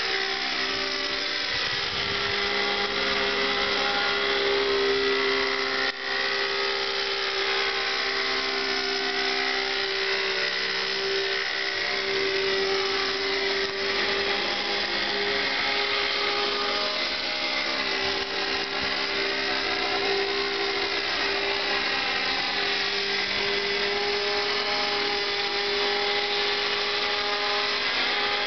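Thunder Tiger Raptor 50 RC helicopter in flight, its two-stroke nitro glow engine and rotors giving a steady high-pitched drone whose tone wavers as the helicopter moves about.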